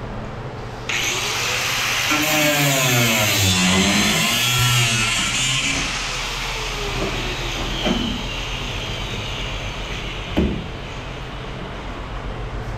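Air-powered cut-off grinder starting up about a second in and cutting into the old quarter-panel sheet metal of a 1962 Chevrolet Impala, a loud hissing whine whose pitch sags and recovers as the wheel bites. It runs on more quietly afterwards, with a sharp knock near the ten-second mark.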